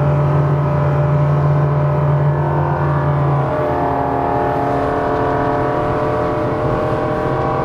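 Outboard engine of a RIB running hard at speed in a turn under throttle, a steady engine note. About three and a half seconds in the low drone drops away and a higher set of steady tones takes over.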